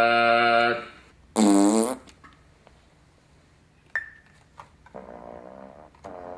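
A held chord on a small electronic keyboard that cuts off just under a second in, followed about half a second later by a short, loud buzzy note whose pitch dips.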